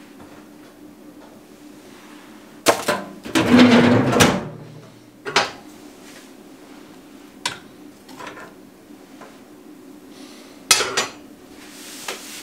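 Scattered knocks and clatter of hard objects being handled, with a longer, louder rattling scrape about three and a half seconds in, over a faint steady hum.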